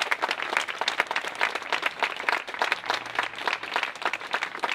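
Crowd applauding, many hands clapping steadily at once.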